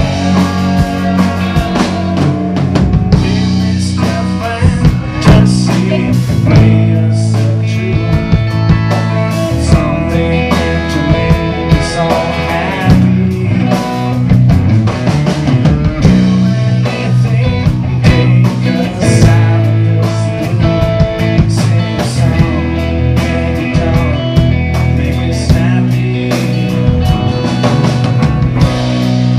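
A live rock band playing: electric guitars and drum kit over a bass line that moves to a new note every couple of seconds.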